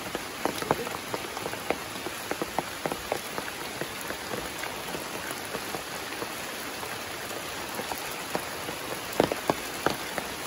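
Heavy rain falling steadily, with many sharp drops landing close by.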